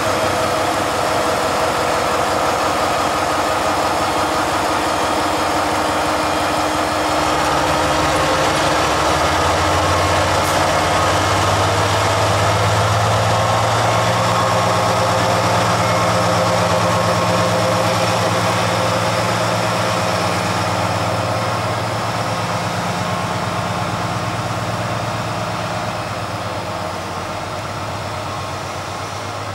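Colas Rail Freight Class 70 diesel locomotive's V16 engine running at a standstill, with a steady whirr over the engine beat. A deeper low hum comes in about seven seconds in and eases off after about twenty seconds.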